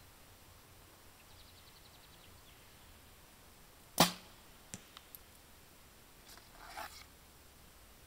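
Hoyt Contender compound bow being shot: one loud, sharp snap of the string about four seconds in as the arrow is released, with a brief low hum after it. A few faint clicks follow within the next second, then a soft rustle.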